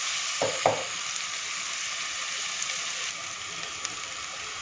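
Chopped onions, peanuts and green chillies sizzling steadily in hot oil in a cooking pot. A wooden spatula knocks twice against the pot about half a second in.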